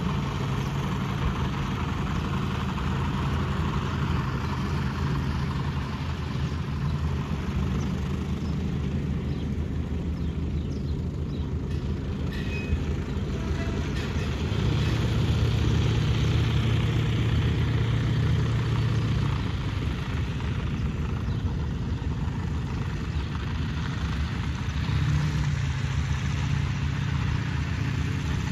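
B.A. Swallow light monoplane's piston engine and propeller running steadily as it taxis. It gets louder for a few seconds about halfway through, eases back, then picks up again near the end.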